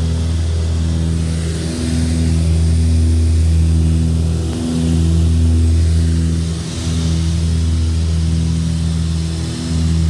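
Piston engine and propeller of a single-engine light aircraft droning steadily in the cockpit, with a hiss of airflow over it and slight swells and dips in loudness.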